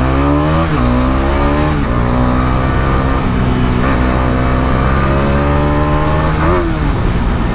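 Bajaj Dominar 400's single-cylinder engine pulling hard under full throttle. The revs climb and fall back at two quick upshifts in the first two seconds, then the engine runs on steadily at higher speed.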